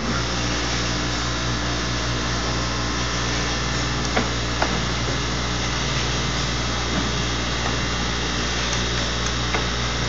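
Steady low machine hum with a droning undertone, with a couple of light metal clicks about four seconds in as a hex key works the set screws on an aluminum drive gear.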